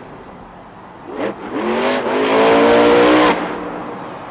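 Monster truck's engine revving hard twice, rising in pitch, holding high revs for about a second, then dropping off sharply about three seconds in as the truck rolls over.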